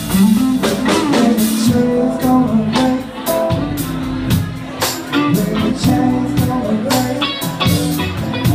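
Live blues-rock band playing at full volume: electric guitar, bass guitar and drum kit, with a steady beat.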